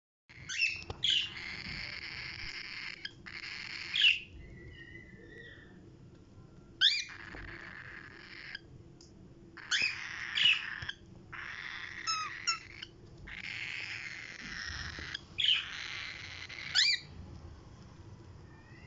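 Pet parrots squawking and screeching in repeated harsh bursts, cut with sharp whistled pitch sweeps. The loudest calls come about five times, with brief quiet gaps between.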